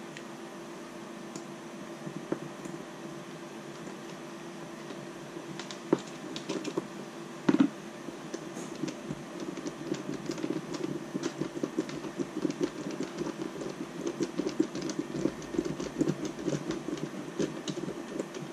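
Hot glue being applied to a small plastic part: irregular light clicks and scratching, getting denser in the second half, with two sharper knocks about six and seven and a half seconds in, over a steady low hum.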